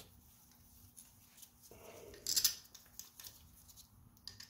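Faint metallic clicks and a brief clattering burst from a hand tool on the ignition coil bolts, as they are threaded back into the engine's valve cover. The burst comes about two seconds in, with a few lighter ticks after it.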